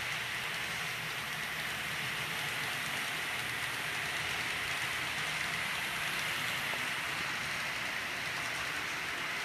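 Model trains running on the layout: a steady whirring hiss of electric motors and wheels rolling on the track, even in level throughout.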